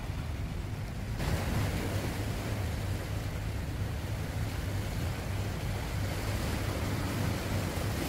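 Steady wash of calm sea against shoreline rocks, with wind rumbling on the microphone; the noise turns fuller and hissier about a second in and then holds steady.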